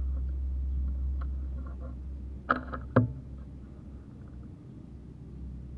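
Strong wind buffeting the microphone with a low rumble. About halfway through comes a sharp air rifle shot, then a louder knock about half a second later.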